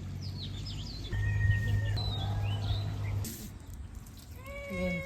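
Birds chirping in short rising and falling notes over a low steady hum, the hum loudest for about two seconds in the middle. A drawn-out, voice-like call comes near the end.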